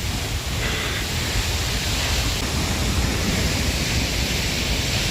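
Kvernufoss waterfall, close by: a steady rush of falling water, with gusts of wind rumbling on the microphone.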